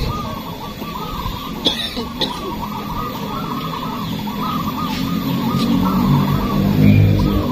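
Many caged zebra doves (perkutut) cooing at once in a dense, continuous chorus of rapid overlapping calls. Two sharp clicks come about two seconds in, and a lower indistinct sound builds up in the second half.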